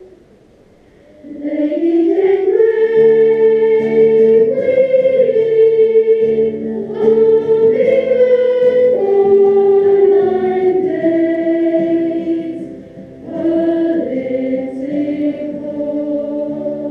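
Choir singing an anthem in sustained chords, coming in about a second in after a quiet moment, with a brief dip near the end before the voices go on.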